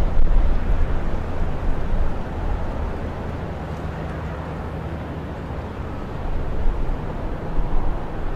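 Low, steady background rumble with a faint hum underneath, swelling a little about six and a half seconds in; no bird calls stand out.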